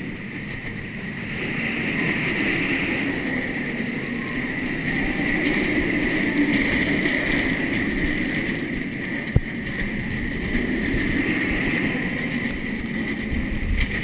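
Steel roller coaster in motion, heard on a handheld action camera: a steady rush of wind and the train running along the track, with one sharp knock about nine seconds in.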